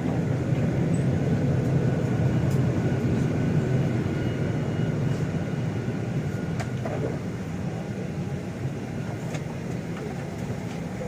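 Steady low drone and air hiss of an airliner cabin during boarding, with a few faint clicks and knocks; it eases slightly past the middle.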